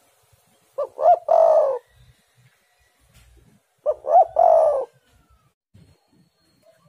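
Spotted dove cooing: two three-part calls about three seconds apart, each two short coos and then a longer, rolling one.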